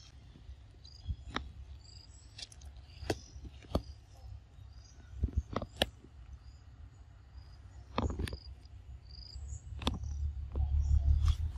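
Short, high chirps repeat irregularly in the background, with scattered sharp clicks and taps close by. A low rumble builds near the end.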